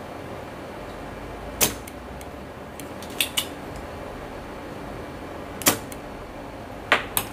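Hand soldering with a fine iron tip in flux on a microcontroller's pins, heard as about six sharp clicks and ticks, some in quick pairs, over a steady faint hum. The iron is clearing a solder bridge between two adjacent pins.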